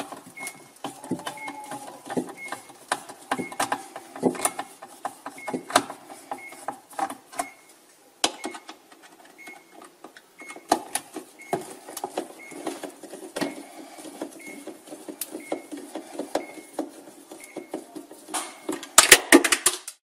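Screwdriver working the water bottle screws inside a Samsung fridge freezer: irregular clicks and scrapes of metal on plastic, with a faint regular tick about twice a second. A quick flurry of louder clicks comes near the end.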